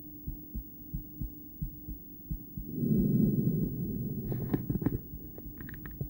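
A woman's heartbeat heard through a stethoscope: regular low thumps. About three seconds in, a loud breath rushes over the chest piece, followed by a run of sharp crackling clicks.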